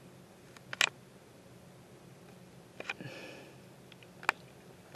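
A few sharp separate clicks, one about a second in, a pair near three seconds, and two more near the end, with a brief rustle just after three seconds, over a faint low steady hum.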